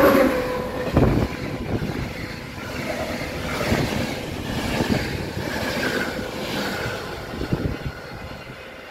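Passing passenger train, the Považan express, heard going by on the main line and fading away as it recedes. The last of its horn note stops right at the start.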